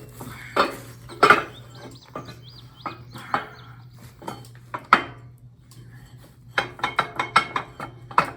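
Steel parts clanking and knocking together as they are test-fitted before welding: a string of sharp metal knocks, with a quick run of them near the end, over a steady low hum.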